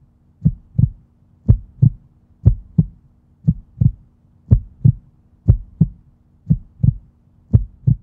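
Heartbeat sound effect: paired low thumps, lub-dub, repeating about once a second over a faint steady low drone.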